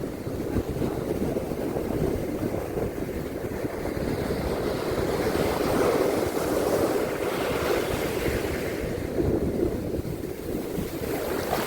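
Sea waves washing onto a beach, swelling a few seconds in and easing again, with wind rumbling on the microphone.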